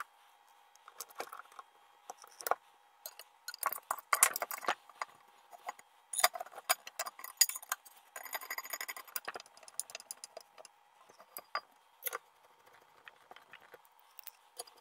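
Irregular clicks, clinks and rattles of RC truck parts being handled and fitted: the plastic front gearbox assembly, metal hardware and an aluminium chassis plate knocking together, with denser clattering about four seconds in and again around eight to nine seconds.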